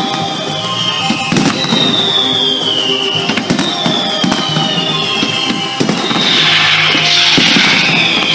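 Fireworks display: repeated bangs over music, with a high falling tone recurring about every second and a half. From about six seconds in, a dense crackling takes over and gets louder.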